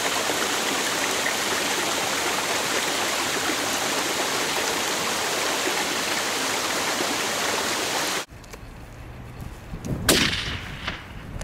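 Steady loud hiss of water (creek or rain), cutting off abruptly about eight seconds in. About ten seconds in, a single sharp rifle shot from a .300 Weatherby Magnum rings out.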